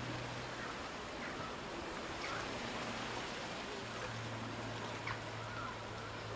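Steady outdoor background noise: an even hiss with a low hum underneath, and a few faint short chirps.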